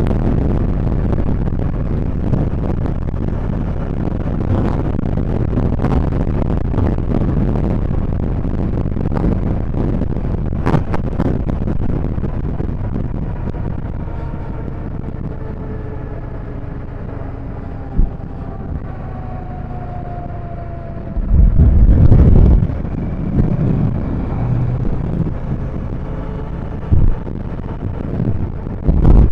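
Vehicle driving along a road: steady low engine and road rumble, with a faint falling whine in the middle and a loud low rumble about three-quarters of the way through.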